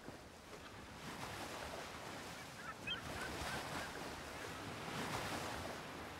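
Sea ambience: a steady wash of waves and wind, with a few brief bird calls about two and a half to three seconds in.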